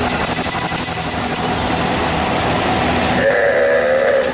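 A whistle sounds about three seconds in, a held tone with a wavering pitch, over steady background noise.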